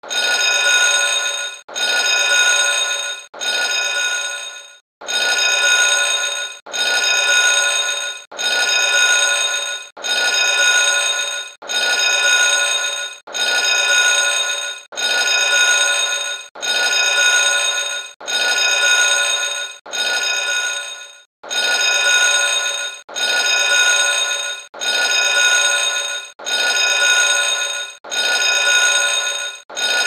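A school bell ringing, one short recording looped over and over: rings of about a second and a half repeat back to back, each fading a little before it cuts to the next.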